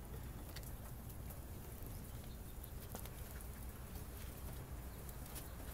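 Faint background noise: a steady low rumble with a few soft ticks and pats scattered through it.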